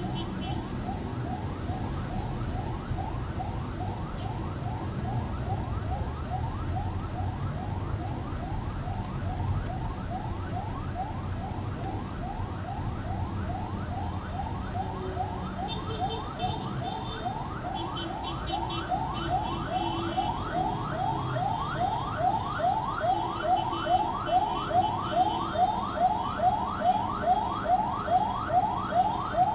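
Siren yelping: a rising whoop repeated about twice a second, growing louder near the end, over the low rumble of traffic heard from inside a car.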